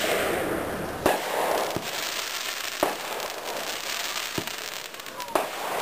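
An 18-shot consumer fireworks cake firing, with a sharp bang about every second or so (five in all) as shots launch and burst, and a steady crackle of the bursting stars between them.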